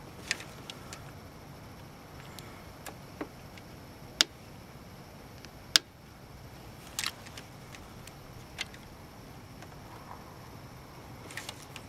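Scattered sharp clicks and light clinks of a small pocket knife and its keyring as the blade works at wire insulation, over a steady low hiss; the two loudest clicks come about 4 and 6 seconds in.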